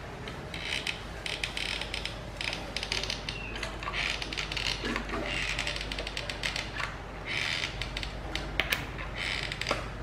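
Hot glue gun's trigger and feed mechanism clicking and rasping in a series of about eight short bursts as the trigger is squeezed repeatedly to push glue out.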